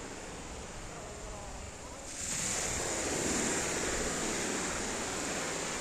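Sea surf breaking and washing up a pebble beach, a steady hiss that swells suddenly about two seconds in as a wave comes ashore.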